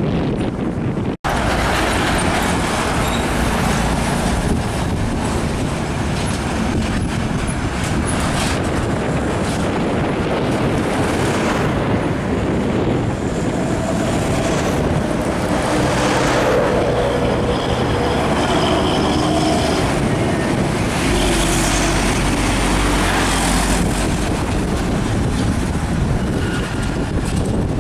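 Heavy diesel trucks and road traffic passing on a highway: engines running under load with steady tyre and road noise. The sound cuts out for an instant about a second in.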